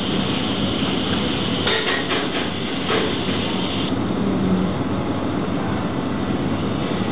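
Automated stacker crane in a sheet-storage warehouse running, a steady mechanical hum, with a cluster of clicks and rattles about two to three seconds in.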